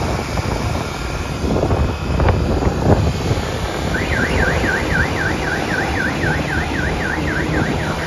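Riding a motorbike: wind buffeting the microphone over engine and road noise. From about four seconds in, a high electronic tone warbles up and down about four times a second, like a car alarm or siren.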